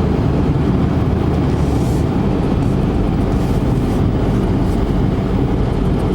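Steady road noise inside a moving car's cabin: an even rumble of tyres and engine.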